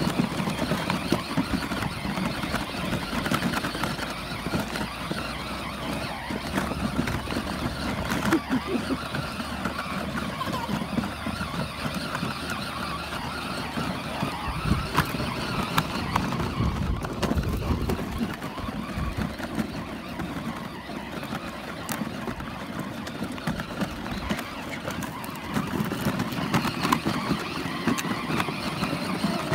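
A child's battery-powered ride-on toy car driving over rough, dry dirt: its small electric motor and gearbox running without a break, and its plastic wheels rolling over the stony ground.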